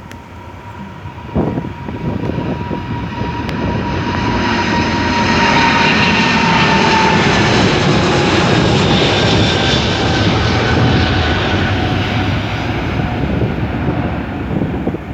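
A jet airliner passes close by: its engine noise swells to a peak and eases off, with a whine that slides slowly down in pitch as it goes by. Wind gusts buffet the microphone near the end.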